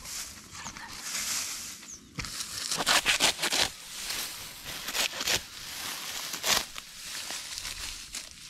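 Dry rice stalks and straw rustling and crackling as they are handled, in quick swishes and snaps.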